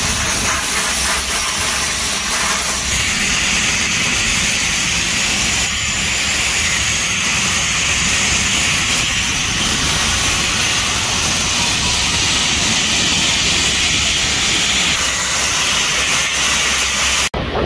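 Steady, loud hiss of high-pressure blasting machines stripping rust and old coating from a ship's steel hull. The hiss cuts off abruptly near the end.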